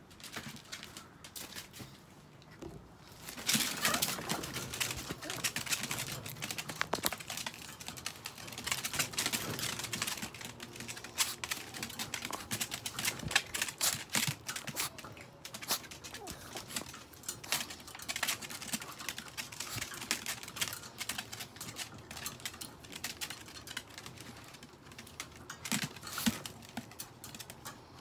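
Chihuahuas' claws clattering and scratching on a wire pen as they jump up at it: a rapid, irregular run of clicks.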